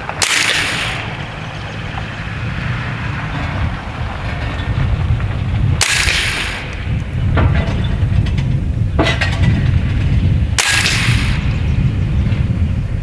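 Three shots from a semi-automatic .30-calibre AEA Terminator PCP air rifle, about five seconds apart. Each is a sharp crack with a short hiss trailing off. Two fainter clicks fall between the second and third shots, over a steady low rumble.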